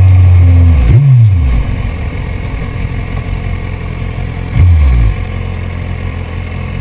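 BMW S1000RR's 999 cc inline-four running loud and steady, then the throttle closes and the revs drop. The revs jump and fall back sharply twice, about a second in and again near five seconds, with the engine running much quieter in between and afterwards.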